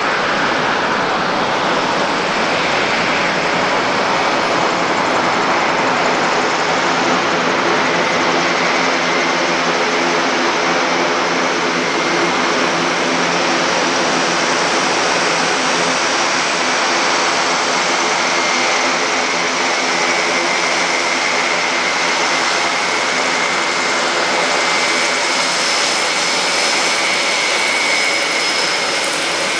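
Airbus A400M's four TP400 turboprop engines running on the ground: a steady, loud propeller drone with a high turbine whine that grows stronger in the second half.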